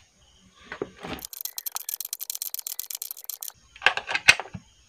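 Ratchet wrench clicking rapidly, about a dozen clicks a second for two seconds, as a nut is tightened on a terminal bolt. A few sharp metallic knocks follow near the end.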